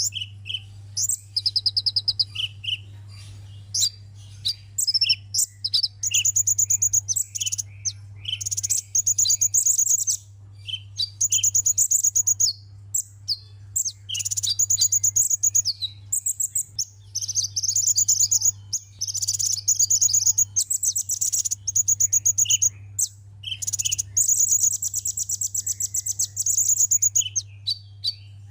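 Sunbird song: high, thin notes repeated very fast in trills of one to three seconds, broken by short chirps, over a steady low hum.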